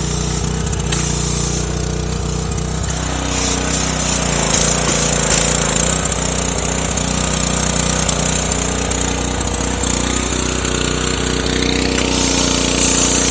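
Pressure washer's engine running steadily under load, with the hiss of water jets from a wheeled undercarriage-cleaner wand spraying beneath a car; the spray hiss grows louder about three seconds in.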